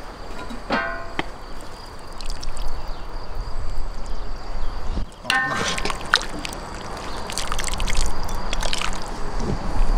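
Two short ringing metal clanks from a cast-iron cauldron and its lid, about a second in and about five seconds in. These are followed by a ladle scooping lamb soup, with broth sloshing and dripping back into the pot as meat and greens are served into a bowl.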